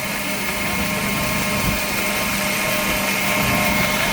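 Belt grinder running steadily: an even whir with a constant high whine, getting a little louder near the end.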